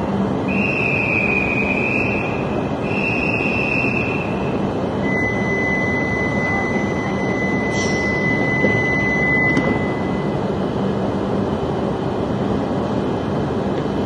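Steady running noise of stopped E5-series Shinkansen trains at a platform. It is overlaid by electronic signal tones: two short wavering chimes, then a steady high beep lasting about four and a half seconds while the train doors close, ending in a light knock.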